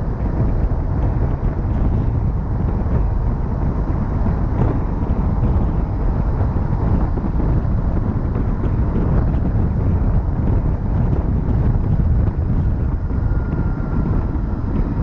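Steady, loud road and tyre noise of a vehicle driving along a highway, with wind buffeting the microphone.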